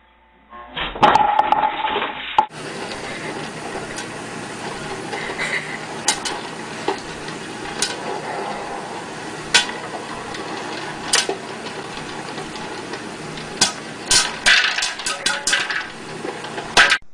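Popcorn popping in a pot under a glass bowl on a stove: a steady sizzling hiss with scattered sharp pops that come thick and fast near the end. It opens with a short loud burst of knocks and clatter.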